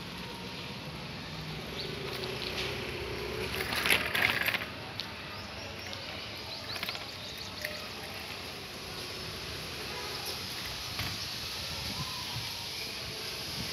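Riding noise from a bicycle on a concrete lane: a steady rush of wind and road noise with scattered small clicks and rattles, and a louder rattling burst about four seconds in.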